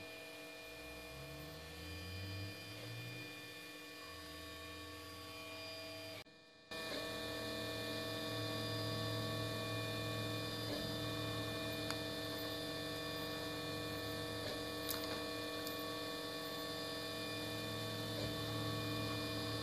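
Steady electrical hum made up of several held tones, with low tones shifting in steps during the first few seconds. It breaks off briefly about six seconds in, then returns louder and steady, with added hiss.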